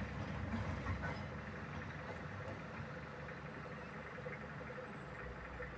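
Lonking CDM6225 crawler excavator's diesel engine running steadily as the machine travels away, slowly growing fainter. It is working again after its CAN bus communication error was repaired.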